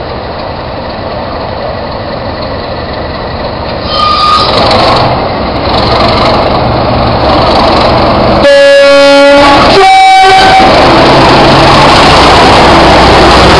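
Two Class 37 diesel locomotives' English Electric V12 engines working hard ("thrash"), growing louder about four seconds in as they near and pass close by. About eight and a half seconds in, the two-tone horn sounds a lower note, then a higher one, lasting about two seconds in all.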